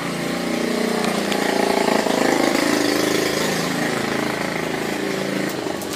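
A motor engine running steadily, growing a little louder to a peak about two seconds in and then easing off.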